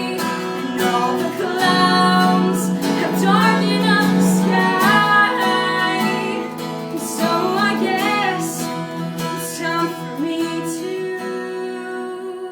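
A woman singing over a strummed guitar, her voice gliding and wavering on held notes without clear words; the music eases off toward the end.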